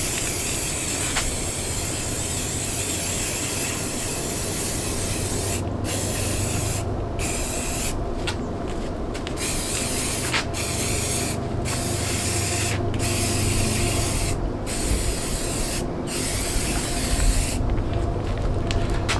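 Aerosol spray-paint can spraying a camouflage coat over a rifle: a steady hiss, then from about six seconds in a series of sprays broken by brief pauses, with several short bursts near the end.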